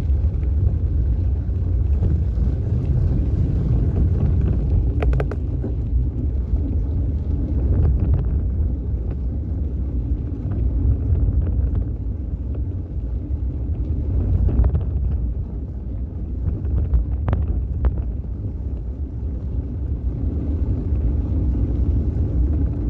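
Wind buffeting the microphone of a phone mounted on a moving bicycle, a steady low rumble mixed with the bike's ride over the trail, with a few sharp clicks along the way.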